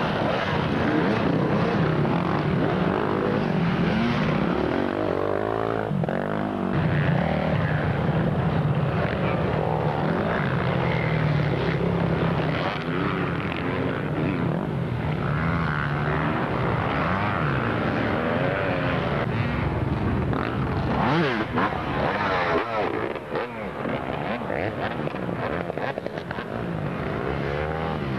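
Several enduro dirt bike engines revving hard as the bikes climb a muddy slope, their pitches rising and falling over one another.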